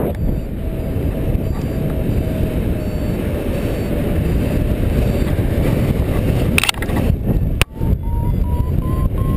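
Strong wind buffeting the microphone, with a paragliding variometer's electronic tone over it: a steady tone that slowly drops in pitch, then, after a couple of sharp clicks about seven to eight seconds in, a higher tone that keeps rising, the vario signalling climbing lift.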